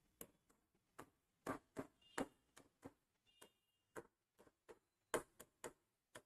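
Writing on a board: a string of short, uneven taps and clicks, about three a second, from the pen tip striking the surface as words are written, with two faint brief squeaks around the middle.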